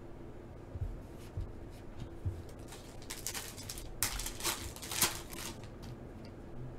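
Foil wrapper of a 2022 Panini Select Football pack crinkling and tearing as it is opened by hand and the cards are drawn out, loudest from about three to five seconds in, after a few light handling clicks. A faint steady hum runs underneath.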